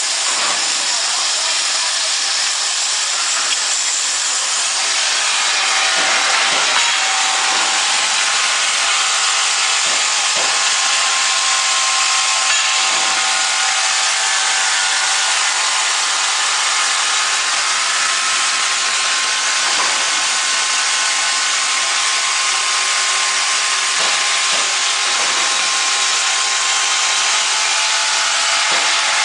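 Industrial band saw machine running steadily through a cut, a continuous hissing, rasping noise with a faint steady tone underneath.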